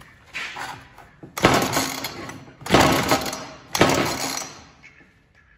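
Ryobi chainsaw's recoil starter cord pulled three times in quick succession, each pull a rasping rattle of about a second, without the engine catching.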